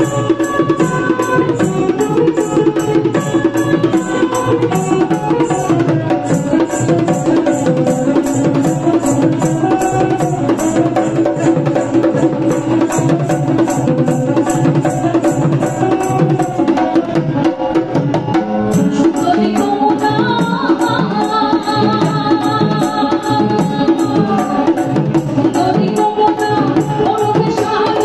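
Live Bengali folk music: a hand-played dhol keeps a steady, fast beat under a banjo melody.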